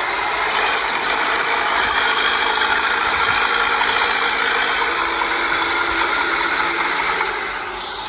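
Bulldozer working, its steel tracks clattering over a running diesel engine.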